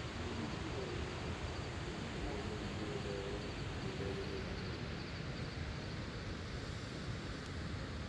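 Steady rushing noise of wind buffeting the microphone, mixed with the distant sound of falling water from the waterfall.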